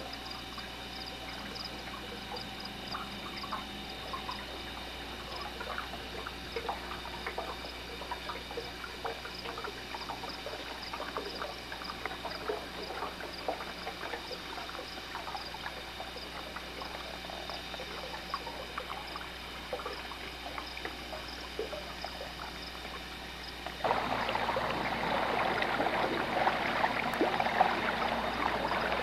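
Water lapping and trickling around a small boat, heard as a faint hiss with scattered small clicks. About 24 seconds in, a louder steady rushing noise sets in abruptly.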